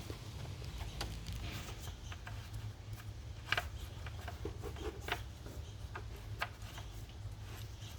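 Scattered light clicks and rubbing as a part is threaded on and hand-tightened during an oil change, over a steady low hum.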